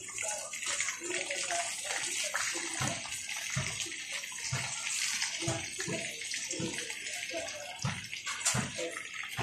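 Chorizo sausages frying in hot oil in a metal pan: a steady sizzle with frequent short pops and spatters, about one or two a second.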